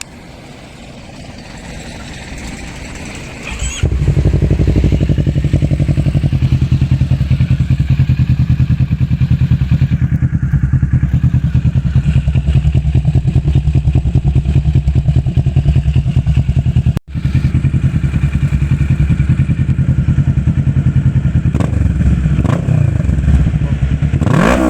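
2023 Kawasaki Z650's parallel-twin engine through an Arrow X-Kone full-system exhaust, starting up about four seconds in and then idling loud and steady. Near the end there is a single throttle blip, the pitch rising and falling back.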